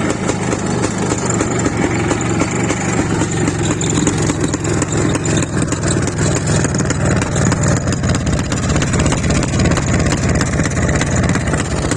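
IZh Planeta motorcycle's single-cylinder two-stroke engine idling steadily after a new cylinder-head gasket was fitted. It runs evenly without popping.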